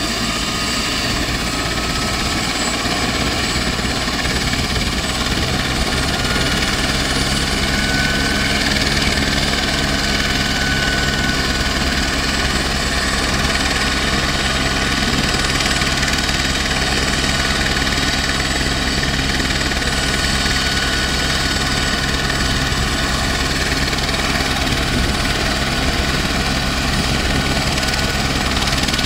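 Turbine helicopter running on the ground with its main rotor turning, before lifting off: a steady engine and rotor noise with a turbine whine that rises slightly in pitch over the first several seconds.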